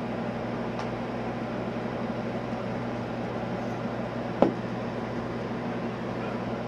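A steady mechanical hum, with one short sharp click about four seconds in.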